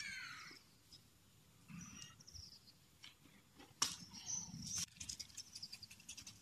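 Faint outdoor sounds with small birds chirping, a sharp click just before the four-second mark, and a quick run of light ticks near the end.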